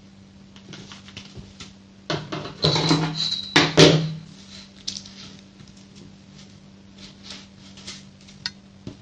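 Steel ruler set down on a tabletop, clattering and scraping for about two seconds near the middle, among light clicks as the metal chain and ruler are handled.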